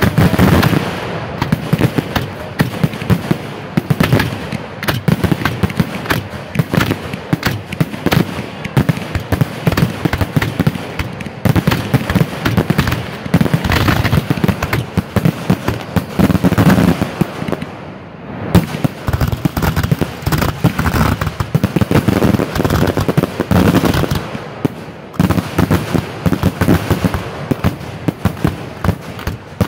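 Aerial fireworks finale barrage heard from the firing site: shells launching and bursting in rapid, overlapping bangs, many a second, with a brief lull about eighteen seconds in.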